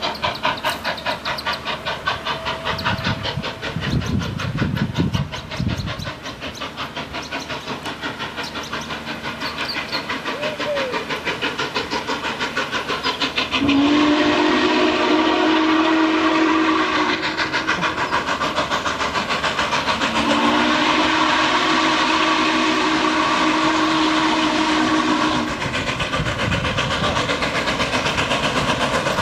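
Norfolk & Western 611, a J-class 4-8-4 steam locomotive, approaching with a rapid, steady exhaust beat. About halfway through its steam whistle sounds a long blast, then a second, longer blast a few seconds later, and a third starts near the end.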